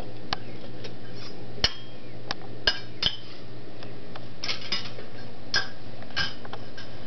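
Metal kitchen utensils clinking and knocking as a toddler's hands rummage through them in a drawer: irregular sharp clinks, some ringing briefly.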